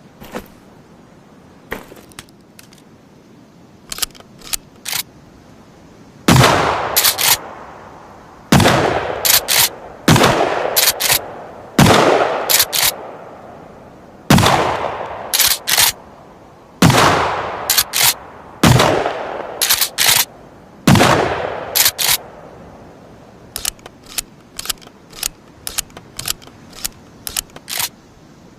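Shotgun fired eight times, about two seconds apart, each blast trailing off in an echo over about a second and followed by a couple of sharp clicks of the gun's action. Separate sharp clicks of handling the gun come before the first shot and after the last.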